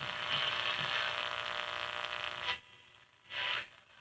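Small AM radio kit speaker giving out static hiss while tuned to a weak station, as the antenna coil is slid on its ferrite core. The hiss cuts out almost completely about two and a half seconds in, comes back for a moment, drops again, and returns near the end.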